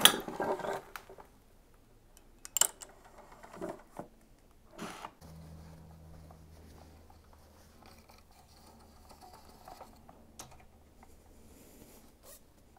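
Metal fork internals clattering out of an upside-down motorcycle fork leg into an oil pan: the damping cartridge, spring and spacer slid out when the fork was inverted, because factory sealant on the bottom bolt had let the cartridge spin loose. A few single knocks follow as the parts are handled, then it goes quiet with a faint steady low hum.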